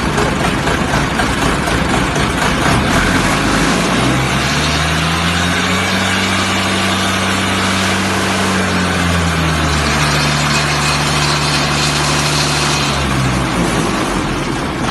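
Diesel engine of a concrete pump running after start-up; about four seconds in it revs up, eases down a little partway, and drops back to idle near the end.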